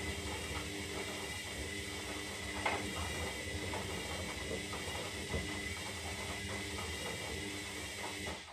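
Zanussi Lindo 300 washing machine turning its drum: a steady motor whine with many irregular small clicks and rattles, stopping abruptly near the end.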